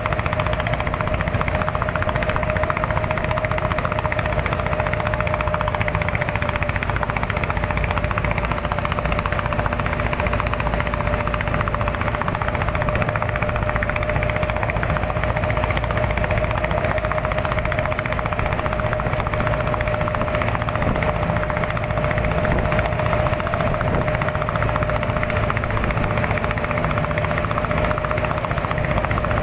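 A motor running steadily at a constant speed, a steady whine held over a dense low rumble.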